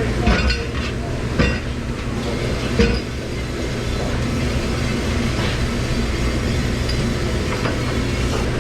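Steady low hum of kitchen machinery in a busy commercial kitchen, with a few sharp clinks and clatters of dishes being handled.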